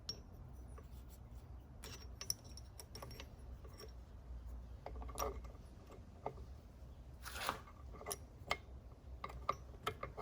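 Light metallic clicks and taps of steel transmission parts being handled as shift forks are fitted onto the gear shaft, with two short, louder scrapes near the middle.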